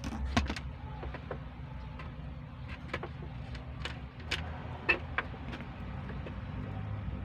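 Scattered light clicks and taps of hands handling wires and connectors during truck wiring, about a dozen irregular ticks, the loudest a little before the five-second mark, over a steady low rumble.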